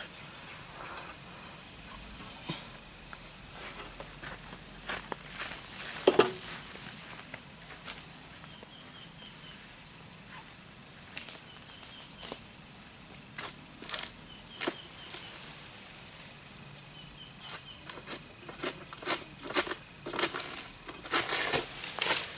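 Steady high insect chorus with two constant pitches. Scattered clicks, knocks and rustles over it grow thicker and louder in the last few seconds as a pole-mounted harvesting sickle (egrek) cuts an oil palm fruit bunch loose.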